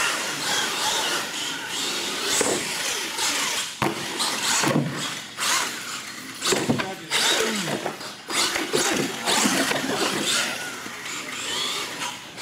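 Radio-controlled monster truck's electric motor whining, its pitch rising and falling as the throttle is worked, with several sharp knocks as the truck lands and hits the floor and ramps.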